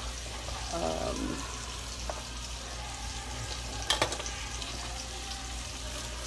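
Chuck roast sizzling as it browns in hot oil in a skillet, a steady frying hiss with light crackle. A single sharp knock about four seconds in.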